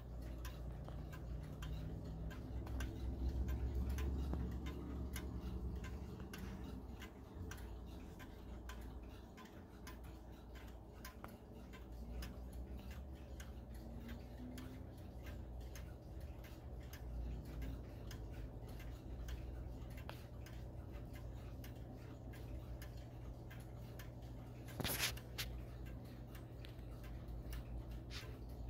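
Howard Miller Jennison triple-chime wall clock ticking steadily, close up, over a low steady hum. One louder knock stands out near the end.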